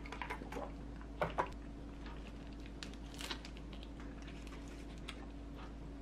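Light crinkling and tapping of paper wrappers as pastries are handled: a paper-wrapped sandwich and a cream puff lifted from its paper liner. The clicks come in scattered clusters, loudest a little over a second in, over a faint steady hum.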